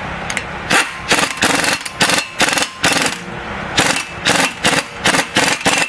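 Repeated hammer blows on a chisel against a seized brake rotor retaining screw, metal ringing on metal. The strikes come about three a second, with a short pause midway.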